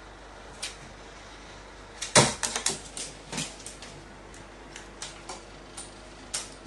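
A carrion crow's feet and beak on a sheet-metal shelf top: a sharp knock about two seconds in, a quick run of clicks and taps over the next second and a half, then scattered light ticks.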